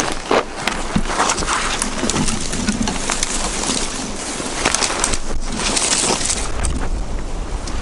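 Snow crunching and bare frozen branches scraping and snapping against clothing as a person crawls through brush, a run of irregular crackles and scrapes.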